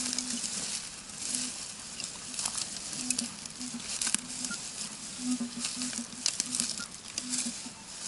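Metal detector sounding a dozen or so short low-pitched beeps as its search coil sweeps through dense leafy ground cover, with the leaves rustling and swishing against the coil.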